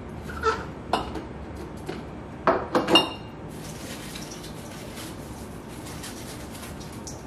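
Clinks and knocks of glass canning jars and a stainless steel mixing bowl as raw green beans are packed into the jars and gathered from the bowl. A cluster of knocks about two and a half to three seconds in is the loudest, and the last one rings briefly. A soft steady rustle of the beans follows.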